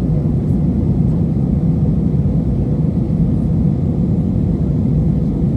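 Steady low rumble of an airliner's jet engines and airflow heard inside the passenger cabin in flight.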